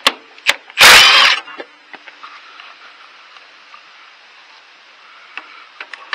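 A steel pry bar knocking and scraping against a Case Ingersoll tractor's steel frame and linkage. Two light knocks come first, then one loud, harsh scrape lasting about half a second about a second in, followed by a few faint ticks.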